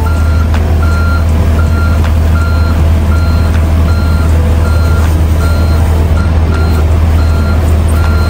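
John Deere 50G compact excavator's diesel engine running steadily, with its travel alarm beeping in an even rhythm of about one and a half beeps a second, the sign that the machine is moving on its tracks.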